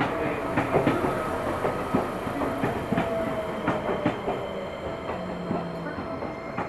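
Seibu commuter electric train rolling slowly along the platform, its wheels clicking over the rail joints. The sound slowly fades.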